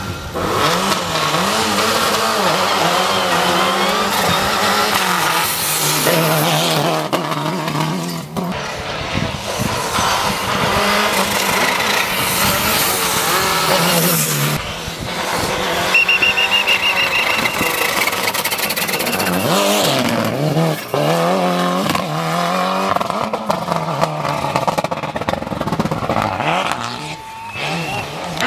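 Lancia Delta HF Integrale rally car's turbocharged four-cylinder engine revving hard under full throttle during a hill-climb run, its pitch climbing and dropping again and again as it goes through the gears and lifts for corners, with tyres squealing in the slides.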